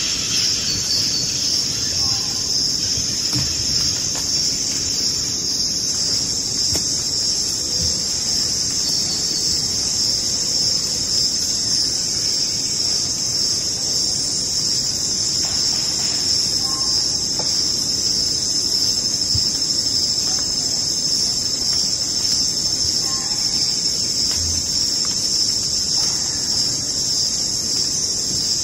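Steady insect chorus, a dense high-pitched trilling of crickets that never lets up, with a few faint short calls now and then.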